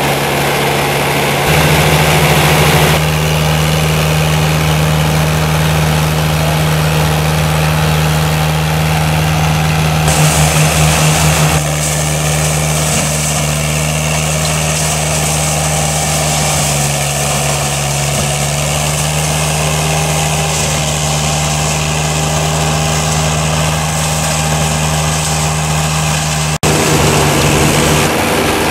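Engine of a Berti E-Trail remote-controlled tracked flail mulcher running steadily, with its tone changing abruptly several times.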